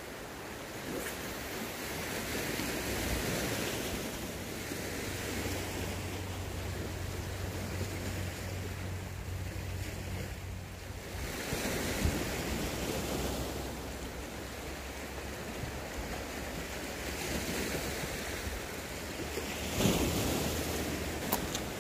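Sea waves washing in on the shore, swelling and easing every several seconds, with wind on the microphone and a faint low steady hum underneath.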